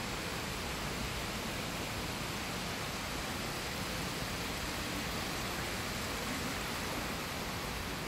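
Steady, even background hiss of a large hotel lobby's room tone, with no distinct sounds standing out.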